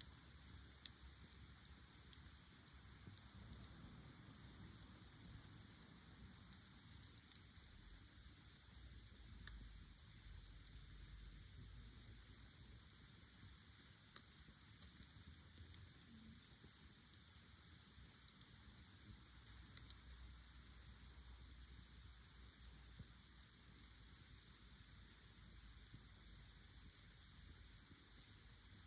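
Crickets chirring in a steady, unbroken high-pitched drone, with a few faint clicks here and there.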